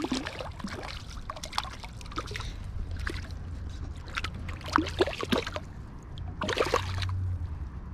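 River water running and splashing, with many irregular short clicks and taps. A louder rush of splashing comes about six and a half seconds in.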